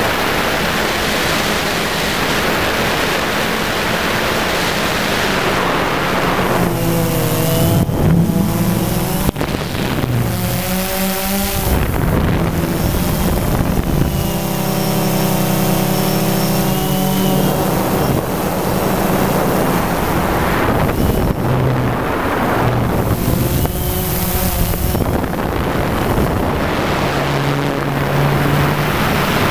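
DJI Phantom quadcopter's motors and propellers whirring under a steady wash of wind and propeller noise. Higher motor tones come and go, shifting in pitch several times as it manoeuvres.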